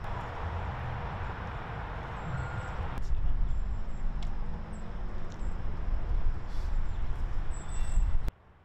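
Outdoor street ambience: a steady low rumble with faint, short bird chirps. It changes abruptly about three seconds in, as at an edit, and cuts off suddenly near the end.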